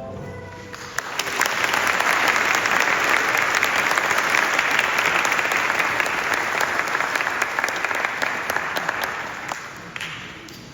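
Audience applauding: the clapping swells about a second in as the last musical note dies away, holds steady, and fades out near the end.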